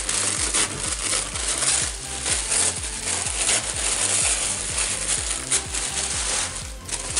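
Sheet of pattern paper rustling and crinkling as it is handled, with background music and a steady low beat underneath.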